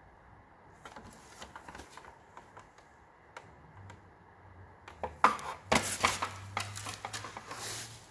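Plastic scooter body panels and small parts being handled: scattered light clicks in the first couple of seconds, then a louder stretch of clattering and rustling from about five seconds in.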